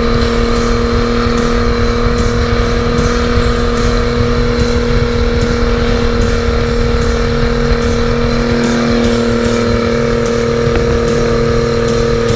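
Twin-turbocharged Honda BF225 V6 outboard engine running loud and steady at high speed, a constant droning hum over a rough low rumble, its tone shifting slightly about two-thirds of the way through.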